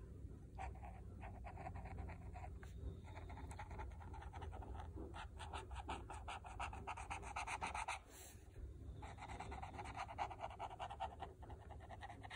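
Faber-Castell brush pen tip rubbing on paper in quick back-and-forth strokes, colouring in a background; quiet, with a short pause about eight seconds in.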